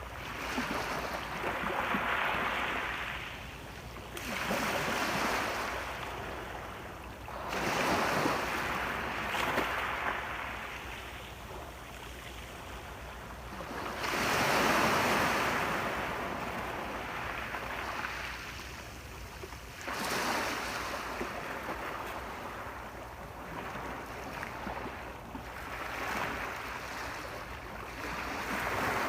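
Ocean waves breaking and washing on a shore, surging and receding every few seconds, one swell near the middle louder than the rest.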